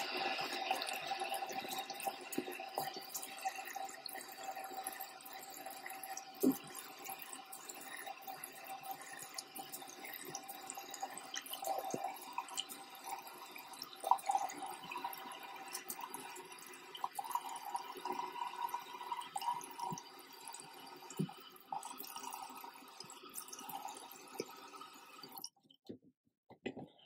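Bathroom faucet running into a sink, with scattered splashes and drips as a face is rinsed. The water cuts off suddenly near the end.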